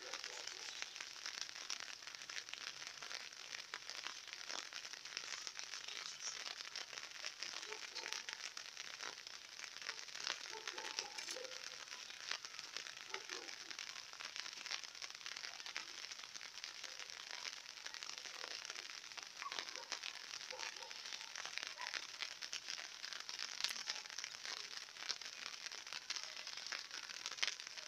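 Light rain falling, a steady fine crackling patter of drops.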